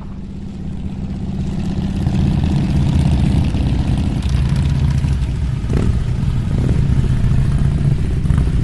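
A motorcycle engine running steadily, fading up over the first two seconds, with a brief rise in pitch about six seconds in.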